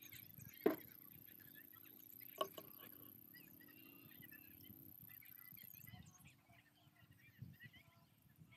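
Mostly quiet, with two light knocks about a second and two and a half seconds in as a plastic measuring cup of diesel is handled over a cut-bottle funnel in a tractor's fuel filler, and faint bird chirps behind.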